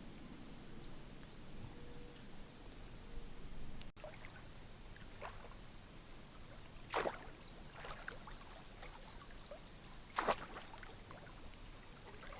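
Water splashing softly, with two short, sharper splashes in the second half.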